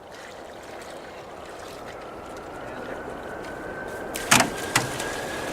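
Water running into a container, a steady rush that slowly gets louder while a faint tone creeps up in pitch as it fills. Two sharp knocks come a half-second apart near the end.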